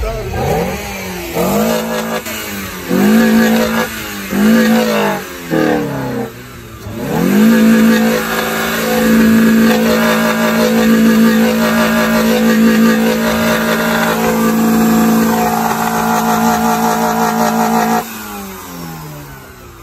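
Volkswagen Golf Mk1's engine revved hard in four quick blips, then held at high revs for about ten seconds before dropping back near the end.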